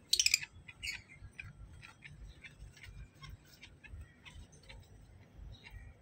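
Lovebirds giving short, high chirps: a louder burst right at the start and another just under a second in, then quick, scattered chirps.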